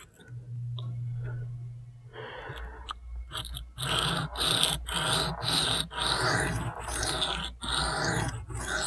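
Cruwear steel blade of a Spyderco Shaman being drawn across a wet low-grit sharpening stone in freehand strokes: a rhythmic scraping of about two strokes a second that builds up about three seconds in.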